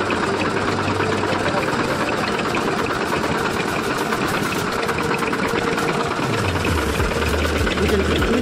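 Sugarcane juice crushing machine running with a steady, rapid mechanical rattle. A low rumble joins near the end.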